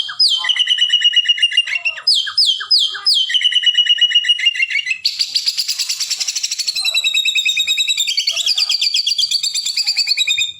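White-rumped shama (murai batu) singing a continuous, varied song of rapid trills and repeated sweeping notes. It mimics canary song run together with cilili and lovebird calls. About five seconds in, it shifts into a dense, fast trill.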